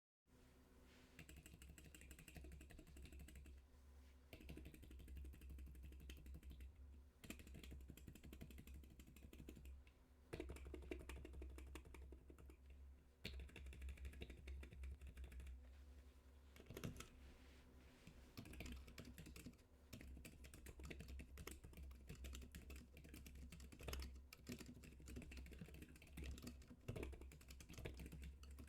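Continuous fast typing on a Keyball 39 split keyboard with ZIFRIEND Panda Silent linear switches and blank Cherry-profile keycaps: soft, muffled keystroke clicks, pausing briefly a few times. A steady low hum runs underneath.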